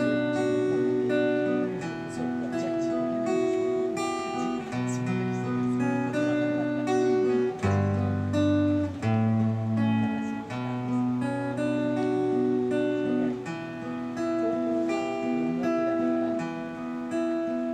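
Solo steel-string acoustic guitar strummed in a steady rhythm, its chords changing every second or two, with no singing over it.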